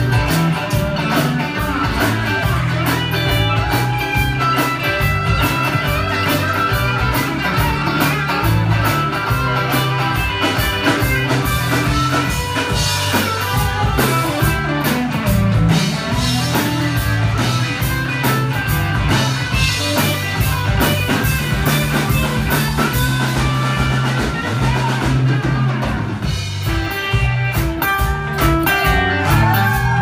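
Live country-rock band playing an instrumental passage, with banjo, acoustic and electric guitars, bass and a drum kit keeping a steady beat.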